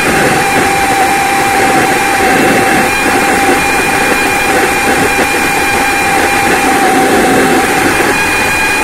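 Air blower running steadily, blowing through a homemade 'wolf' whistle exhaust tip made from pipe: a loud, steady rush of air with a held tone in it, the lower tone fading about halfway through.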